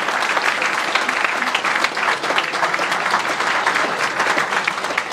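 Audience applauding, a dense steady clapping from a roomful of people.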